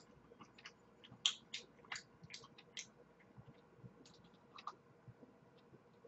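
Faint, irregular small clicks from sipping an iced drink through a straw close to the microphone, most of them in the first three seconds, the loudest about a second in, then thinning out.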